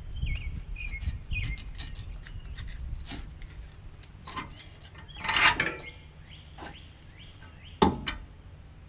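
Metal clicks and scraping as a screwdriver pries the outer brake pad out of a disc brake caliper, with a longer scrape about five seconds in and a sharp clank near the end. Birds chirp faintly in the background.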